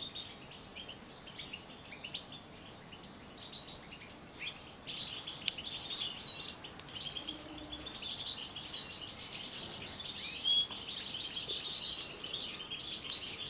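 A flock of European goldfinches chirping and twittering together, a busy mix of overlapping calls and song phrases that grows denser about five seconds in.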